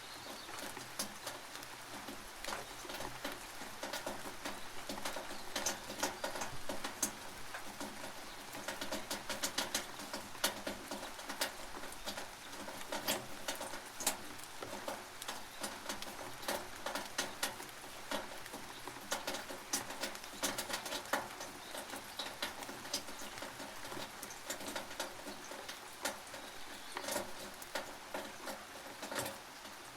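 Rain dripping and pattering on a tin roof, heard from beneath it: a dense, uneven stream of sharp taps over a steady hiss.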